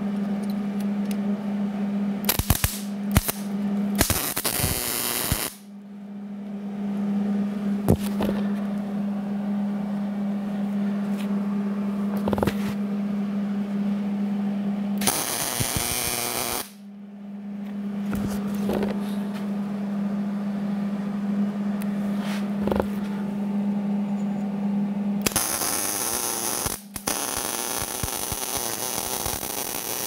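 MIG welder tacking and welding steel gussets onto a steel bracket. Short crackles of tack welds come early, and the arc sizzles in longer runs: once about 15 s in, and again from about 25 s on. Under it all runs a steady electrical hum.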